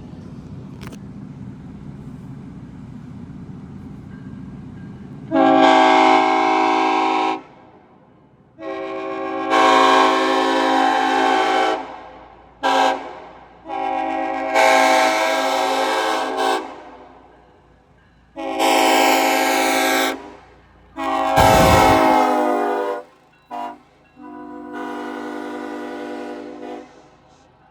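Nathan Airchime K5LLA five-chime train horn sounding its chord in eight blasts, most lasting two to three seconds and two of them short toots. A steady low rumble runs under the first few seconds, before the first blast.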